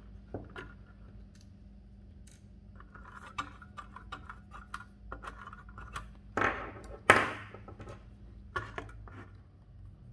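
Small screwdriver backing the screws out of an Addix adding machine's metal casing: light metallic scrapes and clicks. Two louder metal clatters come about six and seven seconds in.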